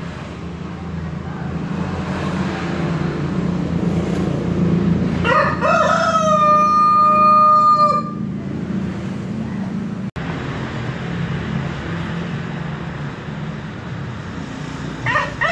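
Brahma rooster crowing: a rising start and then one long held note, and a second crow beginning near the end. A steady low rumble runs underneath.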